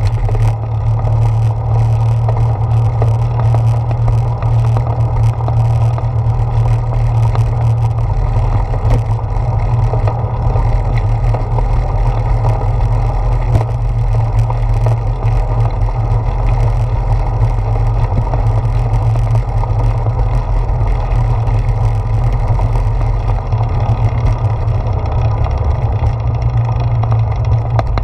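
Bicycle tyres rolling over a wooden plank boardwalk, with wind rushing over a handlebar-mounted GoPro. The noise is a loud, steady, deep rumble with faint ticks scattered through it.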